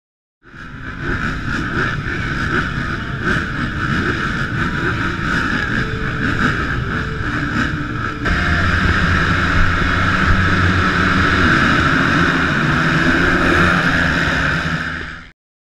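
A full gate of 450cc four-stroke motocross bikes revving on the start line, then a sudden jump to a louder, steadier engine sound about eight seconds in as the pack launches off the start. It cuts off abruptly near the end.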